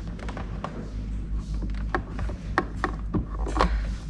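Light, scattered plastic clicks and knocks as a replacement LG water filter cartridge is pushed and twisted into its housing in an LG refrigerator.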